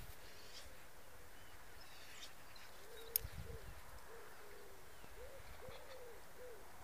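A bird calling in a series of short, low hooting or cooing notes that begin about three seconds in and repeat several times, with one sharp click just after three seconds.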